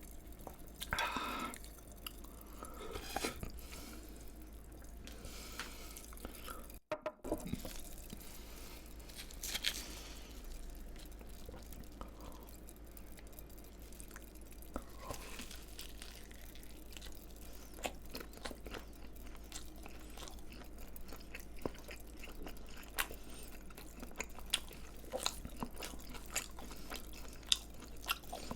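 Close-miked chewing and crunching of crispy fried food, with many small crackles and wet mouth sounds. The sound drops out briefly about seven seconds in.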